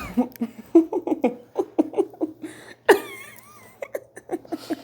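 A woman laughing in quick runs of short breathy syllables, a shocked reaction to a chiropractic neck crack, with a louder, wavering high-pitched cry about three seconds in.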